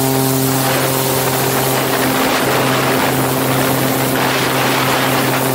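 Zenith CH701's ULPower engine and propeller at takeoff power through a short takeoff roll and steep lift-off: a steady pitched drone under a rush of wind on the outside-mounted microphone that swells from under a second in as the plane gathers speed.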